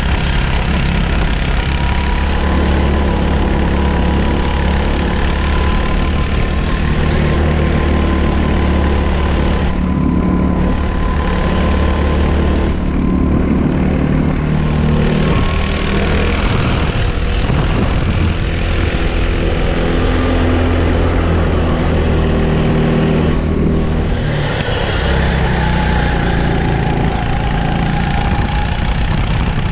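Racing kart engine heard from on board while lapping, its revs rising and falling again and again as the kart brakes into corners and accelerates out of them.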